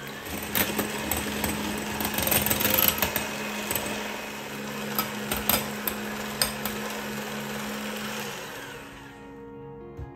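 KitchenAid 9-speed electric hand mixer running, its beaters whipping egg whites and sugar into stiff meringue in a glass bowl, with a steady motor hum and sharp clicks as the beaters strike the bowl. It stops near the end.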